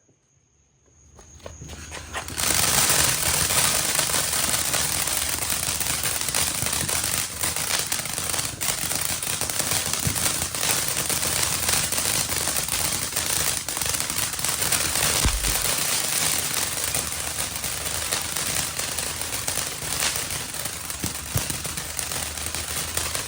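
500-gram Pyro Demon 'Amazing' fountain firework lighting about a second in, building up over the next second or so, then spraying steadily with a dense crackle.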